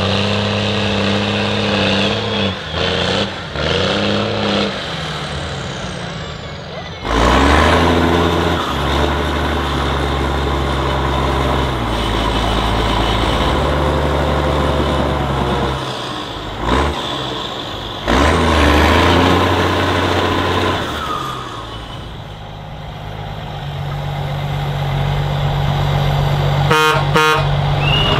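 Heavy off-road trial trucks' engines running and revving under load, the sound changing abruptly about 7 and 18 seconds in. A short broken tone near the end.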